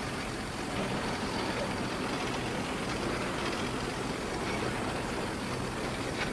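Steady hiss with a faint low hum from an old film soundtrack.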